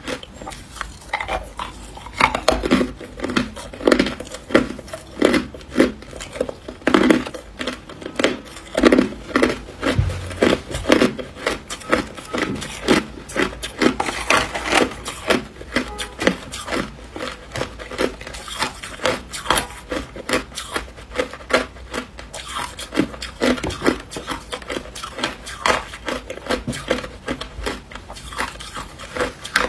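Chunks of hard ice being bitten and chewed close to the microphone: a steady run of crisp crunches, about two to three a second, with brief pauses between mouthfuls.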